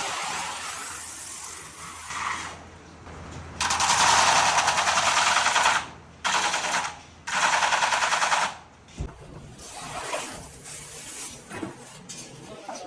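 A machine rattling with very rapid, even strokes in three bursts, the first about two seconds long and the last two shorter, with quieter knocks between.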